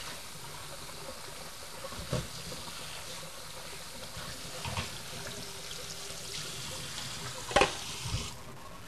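Kitchen faucet running a stream of water onto frozen tomatoes in a colander in a stainless steel sink, a steady splashing rush that stops near the end. A few short knocks come through, the loudest about seven and a half seconds in.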